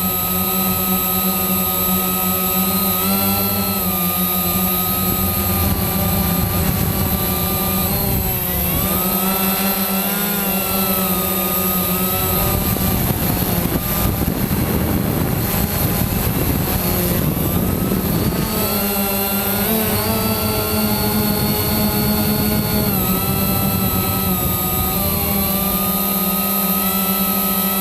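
Quanum Nova quadcopter's brushless motors and propellers whining, the pitch shifting up and down with throttle. For several seconds in the middle the whine gives way to a rushing noise, then returns.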